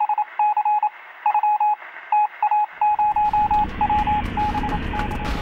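Electronic beeping like Morse code: a single steady tone keyed on and off in irregular short and long beeps, with a thin, radio-like sound. The beeps fade out as a low rumbling noise with scattered crackling clicks rises about three seconds in.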